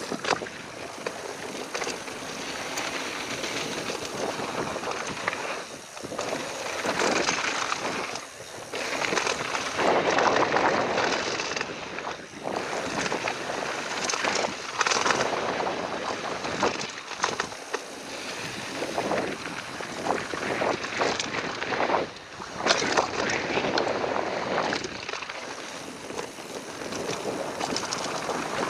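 Ghost FR AMR X6 mountain bike descending a downhill trail: wind rushing over the action camera's microphone and tyres rolling on dirt. The noise surges and dips with speed, with short knocks and rattles as the bike hits bumps.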